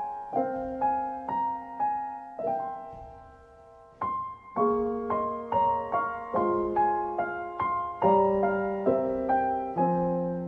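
Background music: gentle solo piano playing a slow melody with chords, each note struck and left to ring out. The notes die away about three seconds in and start again about a second later.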